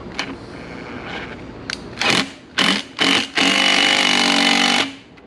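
Small electric power tool running in three short bursts and then one steady run of about a second and a half, tightening the hose clamp on the intake filter.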